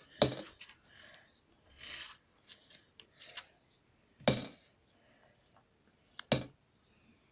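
Coins being handled and put back into a money box: three sharp knocks with light clinks and rustles between them.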